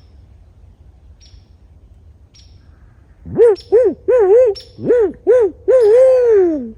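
Barred owl calling: a loud run of about eight hoots, the last one drawn out and falling in pitch, the owl's "who cooks for you-all" call.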